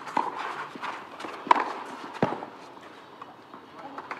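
Tennis rackets striking the ball in a doubles rally: a few sharp pops, the loudest about a second and a half in and another shortly after, then the rally stops.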